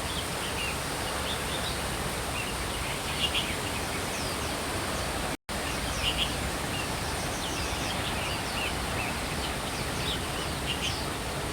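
Steady rushing noise of a waterfall, with small birds chirping in short calls over it. The sound cuts out for a moment about halfway through.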